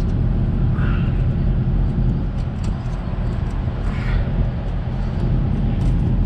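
Engine idling nearby: a steady low rumble, with a few light clicks over it.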